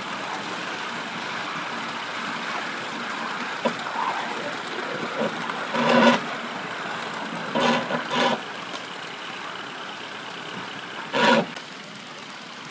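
A 3½-inch gauge live-steam model of an LMS Stanier 8F 2-8-0 running along the track, heard from close behind: a steady rush of wheels and working steam. It is broken by short pitched blasts: one about halfway, two close together soon after, and one near the end.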